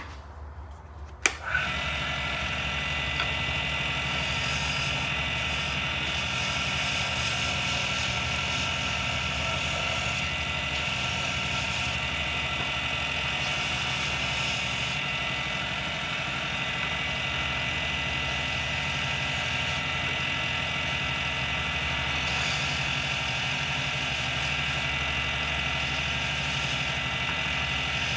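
Small lathe switched on with a click about a second in, then running steadily with a motor hum, while a high hiss comes and goes over it.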